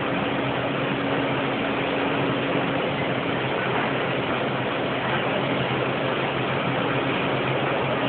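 Many overhead-drive sheep-shearing machines running at once, their handpieces cutting fleece: a steady mechanical din with a low hum underneath.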